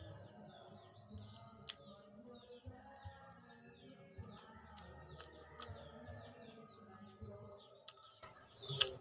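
Small birds chirping rapidly and continuously, faint. Soft chewing and a few sharp clicks sound underneath.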